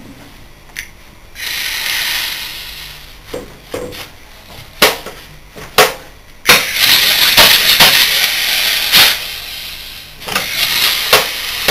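Compressed air from an air gun hissing in bursts into a large scroll compressor that has its discharge valve removed and is being run as an air motor, with sharp metallic clicks and knocks from the scroll mechanism between the blasts. The tank's air pressure is running low, and big scroll compressors generally won't run below 90 psi.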